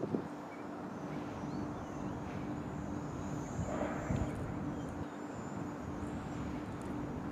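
Steady outdoor background hum, like distant traffic, with faint high chirping now and then and a soft brief rustle about four seconds in.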